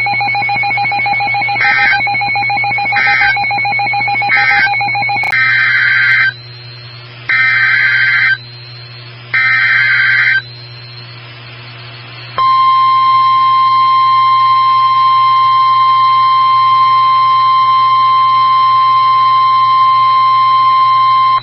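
NOAA Weather Radio alert signalling before a tornado warning. A steady tone with short beeps about every second and a half, then three one-second bursts of warbling SAME digital header data, a short pause, then the long steady 1050 Hz warning alarm tone for about nine seconds.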